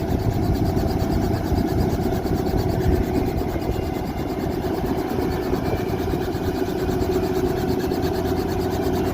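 Helicopter running: a steady engine and rotor noise with a constant hum and a fast, even pulse.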